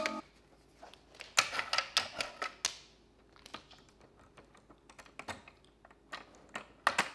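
Irregular light clicks and taps in small clusters as a husky's nose and mouth bump at a round plastic cat toy.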